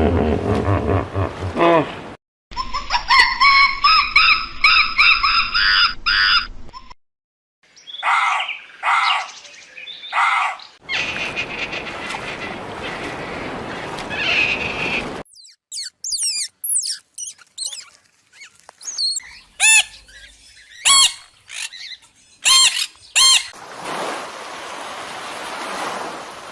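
A run of different animal calls cut one after another, mostly short bird-like squawks and chirps, with two stretches of even hiss between them.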